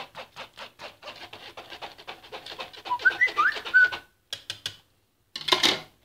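A spoon stirring and pressing blended carrot-cake batter through a plastic sieve: quick, regular scraping strokes, about four or five a second, with a few short high squeaks. The strokes stop about four seconds in, followed by a couple of clicks and one brief louder scrape near the end.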